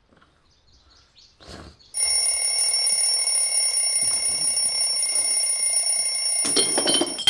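An alarm bell ringing continuously, starting suddenly about two seconds in and stopping near the end, with a few sharp knocks just as it stops.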